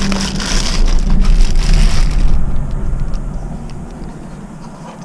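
Clear plastic bag crinkling and rustling loudly as a camera lens is pulled out of it. It stops a little over two seconds in, leaving quieter handling noise and a few light clicks.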